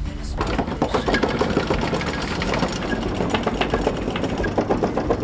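Catamaran's anchor chain clattering as it runs over the windlass gypsy and along the deck channel, a rapid stream of metal link rattles that starts about half a second in, over a low steady rumble.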